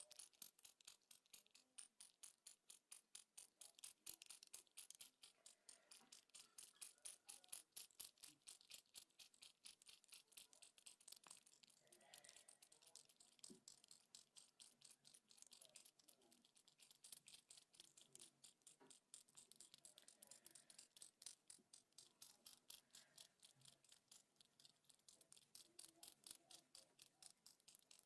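Faint, rapid, even clicking, several sharp clicks a second, keeping up without a break.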